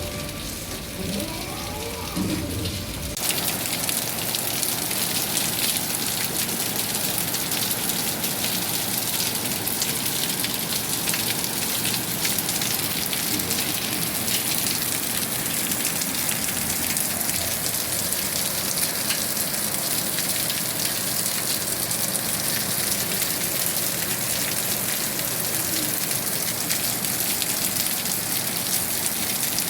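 Steady rain falling, an even hiss of many raindrops, cutting in suddenly about three seconds in.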